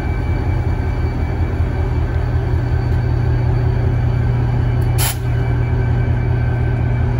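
Diesel-electric locomotive engine running as it rolls slowly by, a steady low rumble with a faint steady whine over it. A short sharp burst of noise about five seconds in.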